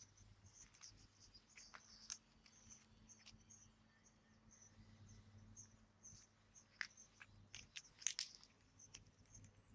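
Near silence with faint, rapid cricket chirping throughout, a low steady hum, and a few sharp clicks about two seconds in and again near the end.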